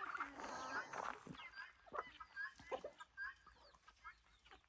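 Chickens clucking softly, a scatter of short calls a fraction of a second apart.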